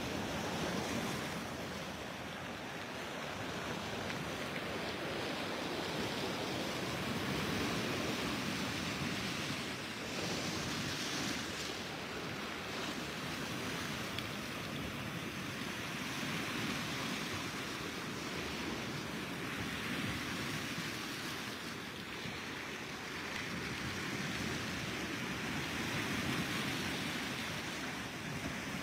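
Surf: small waves breaking and washing onto the shore. It comes as a steady rush that swells and eases every several seconds.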